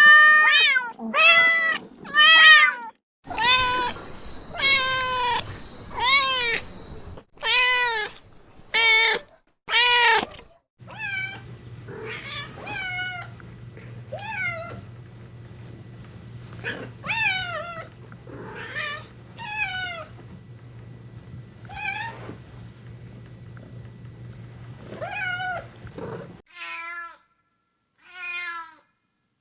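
Several different cats and kittens meowing, one recording cut straight to the next, with meows every second or so. In the middle stretch the meows sit over a steady low hum, and in one earlier clip over a faint high whine.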